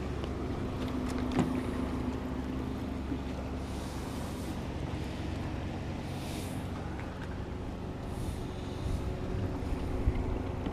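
Steady low engine hum, with brief swells of hiss a few times.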